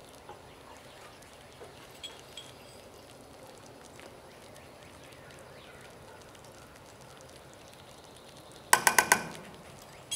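A utensil knocked four times in quick succession against the rim of a stainless steel saucepan near the end, each knock ringing briefly in the metal, with one more knock at the very end. Before that, only a few faint clicks.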